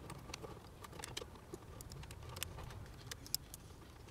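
Faint, scattered small clicks and ticks of fingers handling and wiggling a rewired taillight LED circuit board, testing whether the new connections hold, over a low steady background hum.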